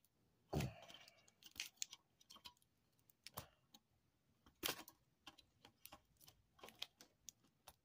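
Faint, scattered clicks and taps of a TV's main circuit board being handled and worked off its metal chassis, with a few louder knocks about half a second, three and a half and nearly five seconds in.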